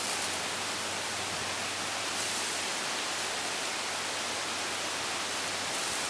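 Steady hiss of background noise with a faint low hum, and a couple of brief faint swells in the hiss.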